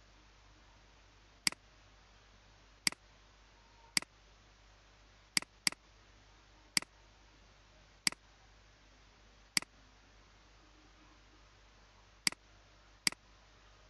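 Computer mouse button clicking: ten sharp single clicks at uneven intervals, including one quick double-click about halfway through.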